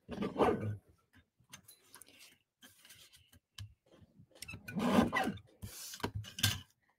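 Cardstock strip rubbing and sliding against a paper trimmer as it is handled and lined up for a cut: a few short scraping sounds, the loudest about five seconds in.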